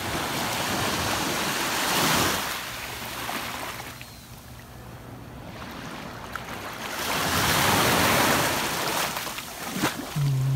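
Small waves washing in over a shallow sandy shore, rising and falling and loudest twice, with wind buffeting the microphone.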